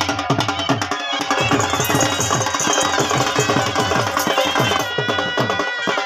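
Music with fast, dense drumming and a melody line over it.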